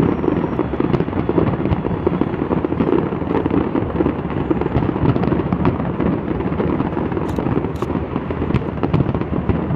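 A fireworks display: a dense, unbroken barrage of bursting shells and crackling, with a few sharper cracks about three-quarters of the way through.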